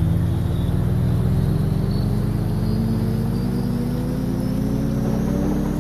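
Background music: a low, sustained drone of layered tones that slowly rises in pitch.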